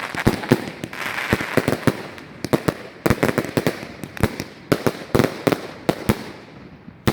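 Large 1.3G compound firework cake firing, a rapid run of sharp bangs several a second over a crackling hiss that thins out toward the end.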